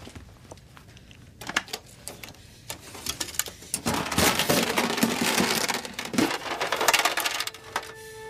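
Metal safe-deposit box handled at its slot: a few scattered clicks, then from about four seconds in a long scraping, rattling run as the box is slid out.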